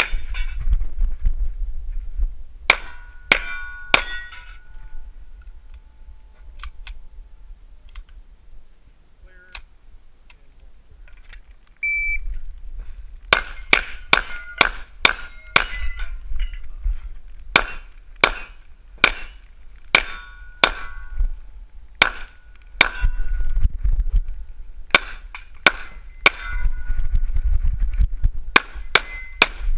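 Pistol shots: a short string of four early on, a quiet stretch, then a long rapid string from about 13 s and another string near the end. Steel targets ring briefly after many of the shots.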